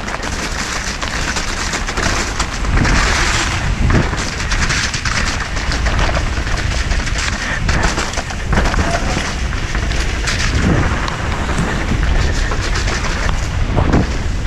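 Downhill mountain bike running fast over a wet, muddy trail: rumbling wind buffeting on the microphone, tyre noise and frequent knocks and rattles from the bike over bumps.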